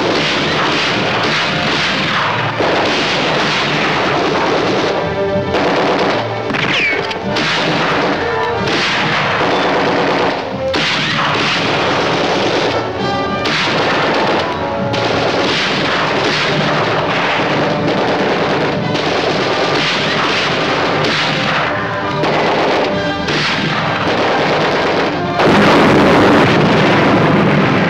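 Film battle soundtrack: rapid machine-gun fire and gunshots over a dramatic music score.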